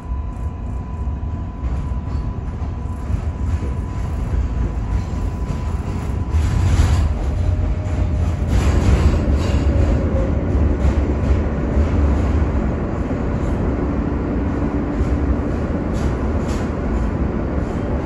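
R143 subway train heard from inside the car as it runs along elevated track and slows into a station: a steady low rumble with wheel clatter over the rails, louder for a few strokes partway through, and a faint whine.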